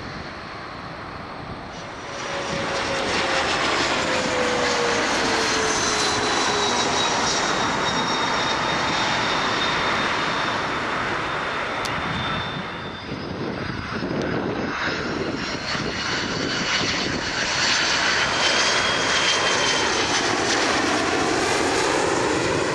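Jet airliner engines, a WestJet Boeing 737-600, passing close by: the sound swells suddenly about two seconds in and the engine whine falls in pitch as it goes past. A second swell of jet noise builds again after the middle.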